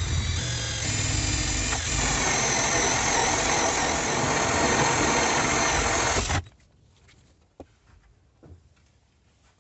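Handheld power tool running steadily, then cut off suddenly about six and a half seconds in, followed by a few light knocks of handling.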